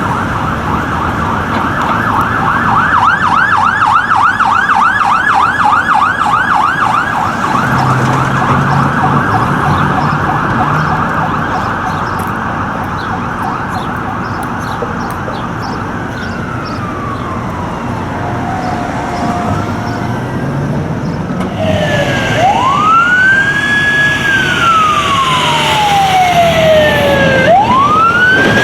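Fire apparatus sirens on an emergency response: a fast yelp at first, then a long falling tone, and slower wails that rise, hold and fall away over the last several seconds.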